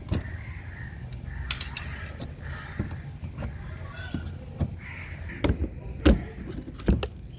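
Plastic push-in clips being pried out of a car's fender liner with a tool: a string of separate sharp clicks and snaps, the loudest about six seconds in, over a low steady hum.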